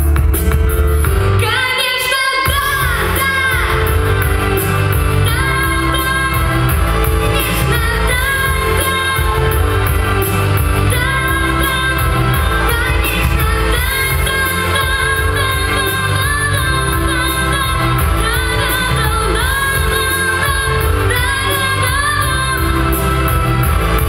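Children singing a pop duet into microphones over a loud backing track, with a brief dip in the music about two seconds in.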